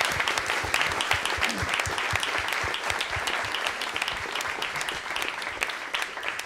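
Audience applauding: a dense patter of many hands clapping, thinning out near the end.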